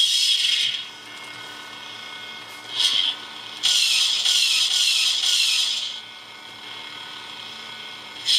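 Lightsaber sound effects from the ASP's Saber Core sound board through its small speaker: the end of the ignition sound, then a steady low hum broken by a short louder hissing swell about three seconds in and a longer one from about four to six seconds, with the retraction sound starting at the very end.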